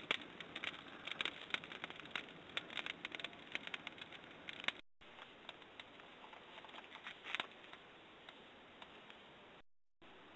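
Small wood fire crackling: a fast run of faint pops and snaps that thins out about halfway through, over a light hiss.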